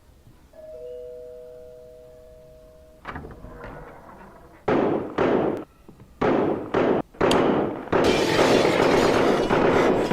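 Two-tone ding-dong doorbell chime, a higher note then a lower one, ringing and fading over about two seconds. It is followed by sudden loud bangs and bursts of noise that come in separate bursts at first and become nearly continuous near the end.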